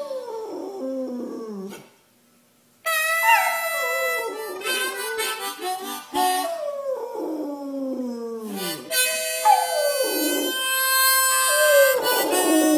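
A dog howling along to a harmonica: long howls that slide down in pitch over the harmonica's held notes, with a brief pause about two seconds in.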